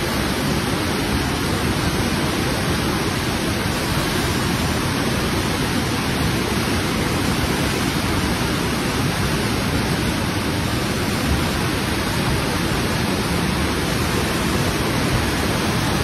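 Steady rushing noise of the Parvati river in flood, fast muddy water churning in a swollen channel after cloudbursts.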